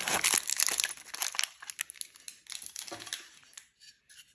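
Packaging crinkling and rustling as parts are lifted out of a foam-lined cardboard box, with light clicks of plastic parts. Dense for about a second, then thinning to scattered crackles and dying away near the end.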